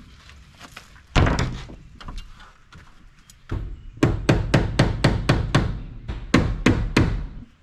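Hammer blows on wooden siding: a single strike about a second in, then a quick, even run of about a dozen strikes at roughly four a second.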